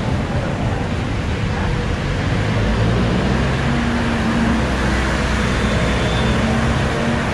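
Steady city street traffic: engines of passing cars, vans and jeepneys, with a low engine drone under a constant road noise.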